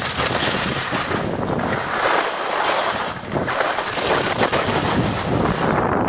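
Wind rushing over a camera microphone, swelling and easing every second or so.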